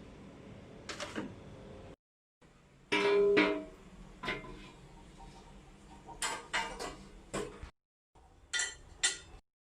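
Metal objects clinking and clanking: a string of separate knocks, each with a short ring. The loudest, about three seconds in, rings with a clear tone.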